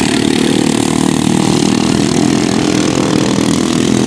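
Several ride-on racing lawnmower engines running on a race course, a steady mechanical drone with no breaks.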